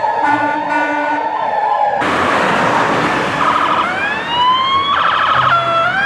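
Emergency-vehicle siren sounds. For the first two seconds a wavering siren tone runs over a repeating pulse. Then a rush of noise comes in, with siren wails rising in pitch twice and a quick warble between them.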